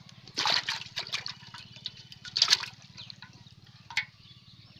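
A small fish splashing and thrashing in water inside a metal pot, in two loud bursts about half a second and two and a half seconds in, with lighter splashes between and a sharp knock near the end.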